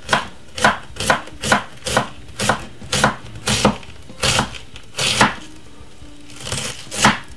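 Chef's knife chopping cabbage on a wooden cutting board: a run of sharp knife strokes, about two a second, with a short pause near the end before a last stroke.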